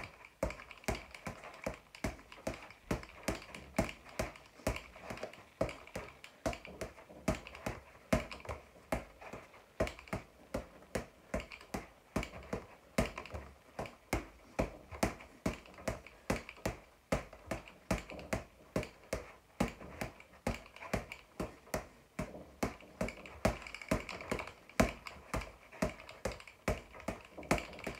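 Boxing gloves hitting a floor-to-ceiling ball in a steady run of sharp slapping strikes, about three a second in an uneven rhythm.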